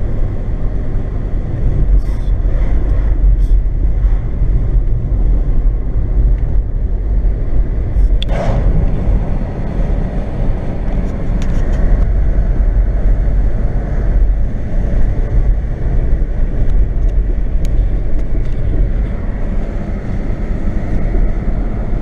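Car driving on the road, heard from inside the cabin: a steady low rumble of engine and tyre noise. A short, sharper sound cuts through about eight seconds in.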